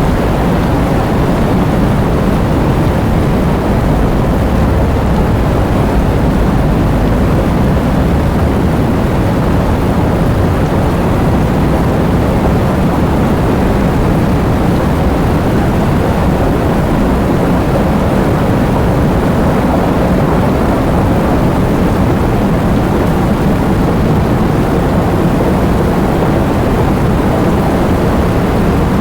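Heavy rain and strong wind: a steady, deep rushing noise with no let-up.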